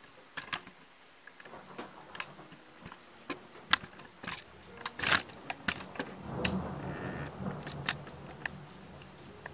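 Irregular sharp clicks and taps from the camera being handled and moved about at the window, the loudest about five seconds in. A low rumble swells up around six seconds in and fades by eight.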